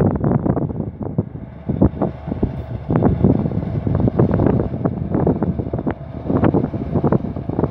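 Wind buffeting the microphone in irregular gusts, over the running of a Fendt 1050 tractor's diesel engine as it pulls a cultivator across the field.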